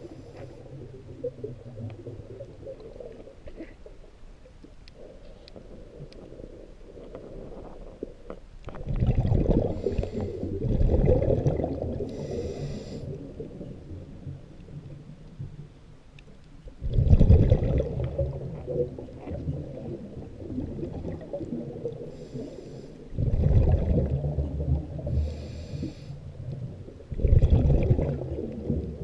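A diver's breathing heard underwater: about five loud bursts of exhaled bubbles rumbling a second or two at a time, with fainter short hisses in between, over a low steady underwater rumble.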